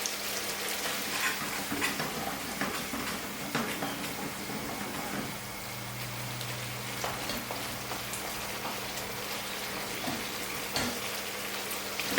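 Spiced onion-based curry sauce sizzling in a pan on high heat, with scattered small pops, over a steady low hum.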